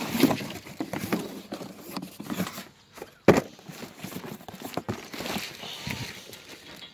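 Rustling plastic wrap and irregular knocks as a plastic-wrapped bundle of antenna tubes is handled on clay roof tiles, with one sharp knock about three seconds in.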